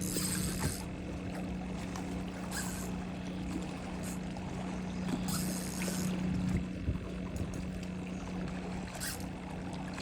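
A steady low motor hum, like a boat engine running, with short hissing swishes every few seconds.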